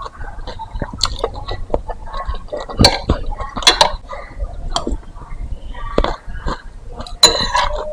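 Close-miked eating sounds: slurping meatball soup and chewing, with a few clinks of utensils on the bowl. The loudest slurps come about three seconds in and near the end.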